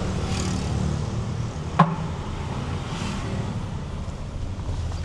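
Motor vehicle on the move: steady engine and road rumble. A short sharp knock about two seconds in.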